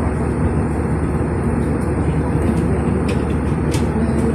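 Steady roar of an airliner in cruise heard from inside the passenger cabin: engine and airflow noise, even and unchanging.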